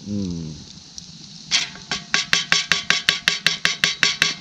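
Wooden spoon stirring thick beef stew in a cast-iron Dutch oven, knocking against the pot in quick, even strokes about five a second, starting about a second and a half in.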